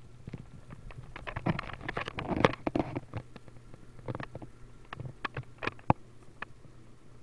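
Handling noise: a run of knocks, taps and rubbing, busiest about one to three seconds in, then scattered clicks with one sharp click near the end.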